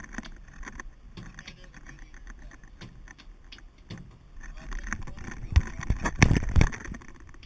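A landed halibut flopping on a wooden boat deck: a run of light knocks and slaps. Several loud thumps come close together near the end as the camera itself is grabbed and handled.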